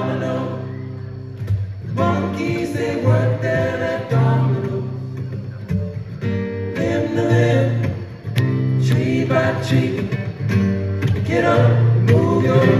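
Live acoustic folk music: two acoustic guitars strummed and picked over a plucked upright double bass, with a man singing.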